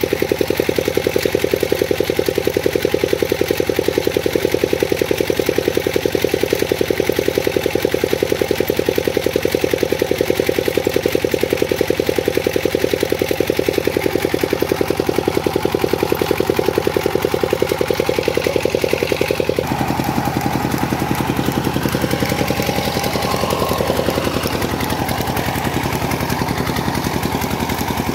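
Old 25 hp Petter diesel engine running steadily with a rapid, even beat while driving a flat belt to a water pump. About twenty seconds in, the sound turns deeper in tone.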